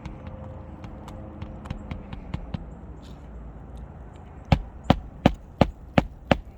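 Hammer driving a roofing nail into a shingle: a few light taps setting the nail, then from about four seconds in a run of hard, even strikes about three a second.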